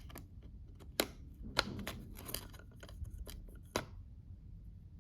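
Hands working inside an opened ThinkPad T460s laptop base, freeing the speaker wire and plastic speaker parts: a scatter of small sharp clicks and scrapes, the clearest about a second in and just before four seconds.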